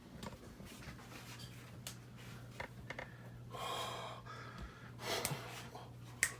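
Faint rustling and small clicks from a snake shipping bag being handled and opened, with two breathy bursts partway through and a sharp click near the end, over a steady low hum.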